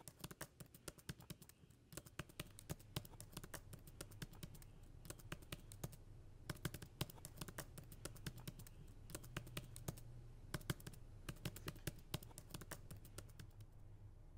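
Typing on a laptop keyboard: quick, irregular key clicks in runs with short pauses, stopping near the end, over a faint steady low hum.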